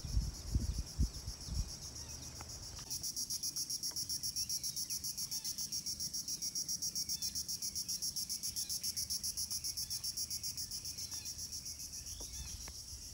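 Insects calling from the riverside forest: a high, fast, steady pulsing trill that grows louder about three seconds in. A few low knocks near the start, and faint short calls underneath.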